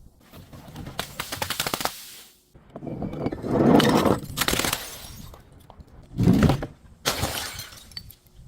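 Glass bottle breaking and crunching in several bouts. There is crackling about a second in, a long loud crush from about three to five seconds, a heavy thump a little after six seconds, then more crunching.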